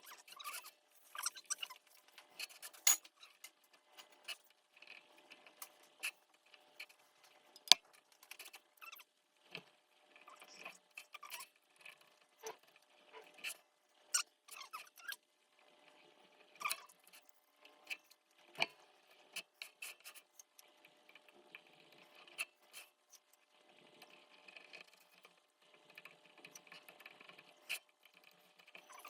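Small hand-tool sounds on wood veneer: irregular scraping and rubbing strokes with light clicks and taps, a few of them sharper, as marquetry pieces are cut, trimmed and fitted.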